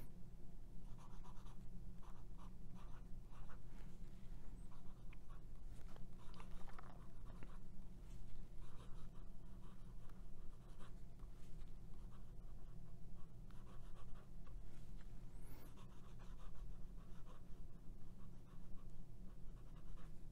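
Fountain pen writing in cursive on paper: the 14k gold fine nib of a Pelikan M400 making a light scratching on Rhodia 80 gsm lined paper. It comes in short, irregular strokes over a steady low hum.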